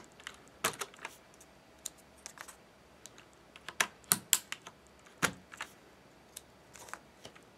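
Plastic keycap puller clicking onto keycaps and the caps popping off the Cherry MX switches of a mechanical keyboard, one after another, as a string of irregular sharp plastic clicks with short pauses between.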